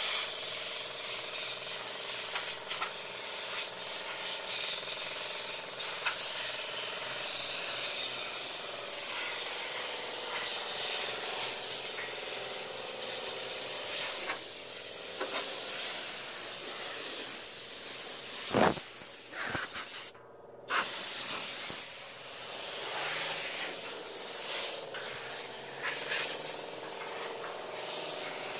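Polyurea spray gun hissing steadily as the coating is sprayed, over a faint steady hum. A sharp knock comes about two-thirds of the way through, and the hiss breaks off briefly just after it.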